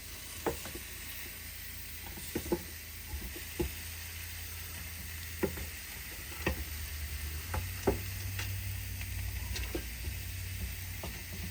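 Pork chops sizzling on the hot grill plate of a Ninja Foodi Smart XL indoor grill, with irregular clicks and taps of a utensil as the chops are flipped, over a low steady hum.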